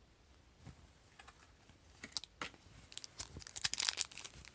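Plastic blister packaging of a Hot Wheels car being opened by hand, a quick run of sharp crackles and clicks starting about halfway in.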